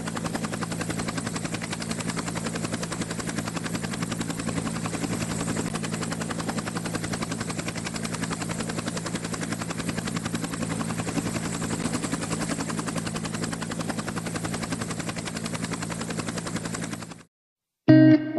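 Helicopter rotor and engine running steadily, a fast even chopping over a low hum, which cuts off suddenly near the end.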